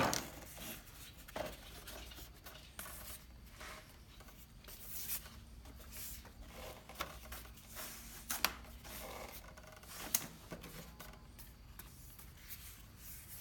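Faint handling noises: light rubbing and scattered small clicks, with a couple of sharper clicks about eight and ten seconds in.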